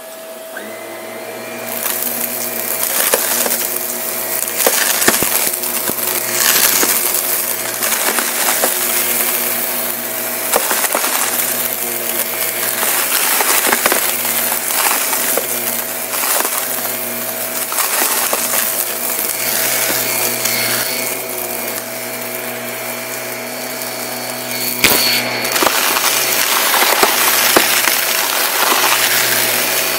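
Shark upright vacuum cleaner's motor spins up, then runs steadily over carpet. Small crunchy bits and confetti crackle and rattle as they are sucked up.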